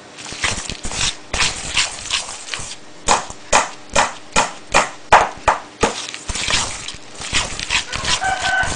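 Wire whisk beating egg yolks, sugar and margarine in a bowl, the wires clicking against the bowl in quick, irregular strokes, about two to three a second.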